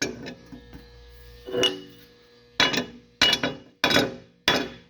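Hammer blows on a steel switch-stand foot latch, metal ringing on metal: six strikes, coming faster toward the end. The latch is seized ('froze') and is being knocked loose.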